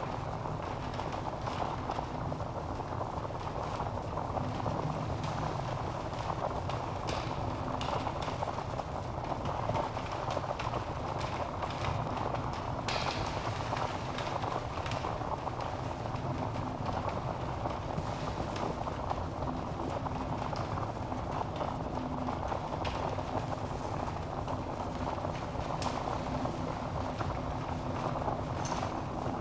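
Logs burning in a fireplace: a steady low rush of flame with irregular sharp crackles and pops.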